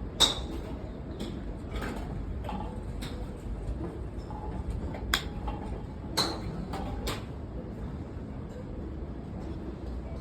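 Golf club heads striking balls: a series of sharp clicking impacts of varying loudness, the loudest just after the start and another cluster around the middle.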